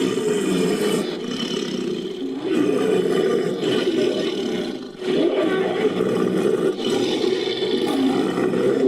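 Designed creature roars, layered from ape and big-cat roar recordings: three long, rough roars back to back.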